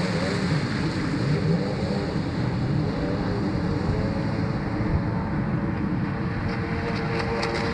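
Sea-Doo GTX personal watercraft running at speed, its engine note wavering up and down as it moves off along the river, with the hiss of its spray and wake. A few crackles near the end.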